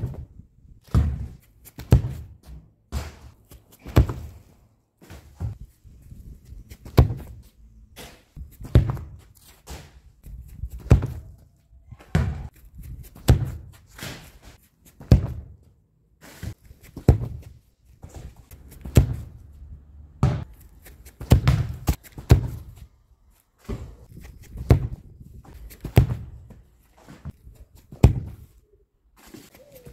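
Repeated dull thuds of a football being kicked, with footsteps on grass and packed dirt, in a run of sharp impacts about one a second.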